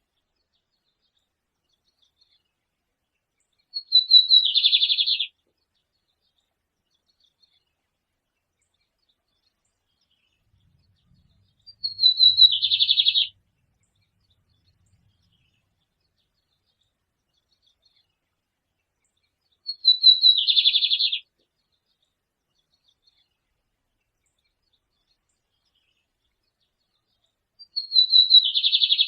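A songbird singing the same short phrase four times, about eight seconds apart. Each phrase is a few quick high notes running into a dense trill that lasts about a second and a half.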